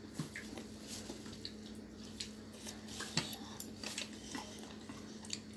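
Chopsticks clicking and clinking faintly against bowls during a meal, a few scattered light clicks, over a faint steady hum.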